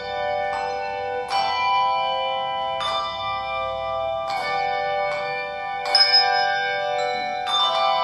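Handbell choir playing a slow piece: chords of handbells struck together about every second and a half, each left to ring on under the next.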